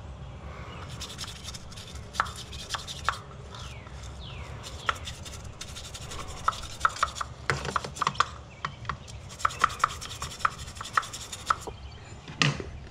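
A thin hand tool scraping and ticking against the metal of the BMW S65 V8's individual throttle bodies during cleaning: a rasping rub with many sharp clicks, densest in the second half. Near the end there is one short, loud falling swish.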